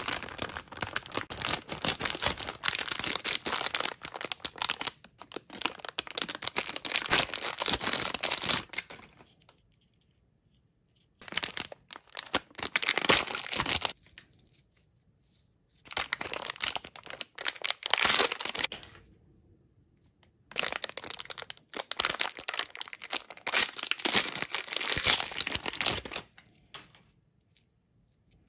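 Plastic lollipop bag and wrappers crinkling as they are handled and torn open, in four spells of a few seconds each with short quiet gaps; the first spell is the longest, about nine seconds.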